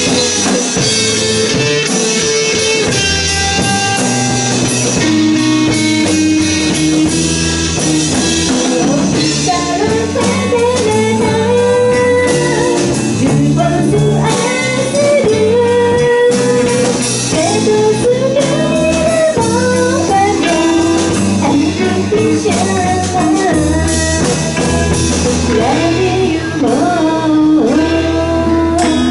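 Live rock band playing: a woman singing over electric guitar, bass guitar and drum kit.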